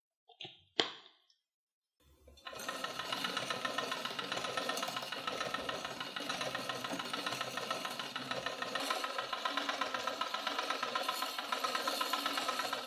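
Two clicks as a plug is pushed into a power socket. About two seconds in, the hand-cranked film mechanism of a 1930s Pathescope Ace 9.5 mm projector starts a fast, steady mechanical clatter.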